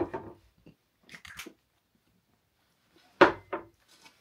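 A person with a mouthful of aerosol whipped cream making short wet mouth noises and muffled vocal sounds, then one loud, brief vocal outburst about three seconds in.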